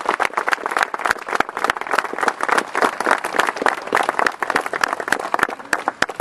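Audience applauding with a dense patter of hand claps that thins to scattered single claps near the end.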